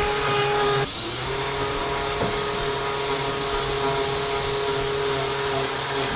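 Angle grinder running steadily as it cuts and shapes cow hoof horn, a held motor whine with hiss. Its level and pitch dip briefly about a second in, then it picks up again.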